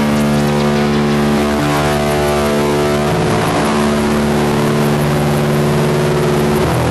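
Free-improvised electronic music: a thick, sustained drone of steady tones from an electric bass run through effects, with synthesizers and loops. It shifts to new pitches about three seconds in and again near the end.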